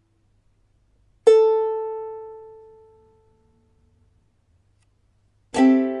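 Ukulele sounded twice: a bright plucked note about a second in that rings and fades away over about two seconds, then a fuller strum with several notes at once near the end, still ringing.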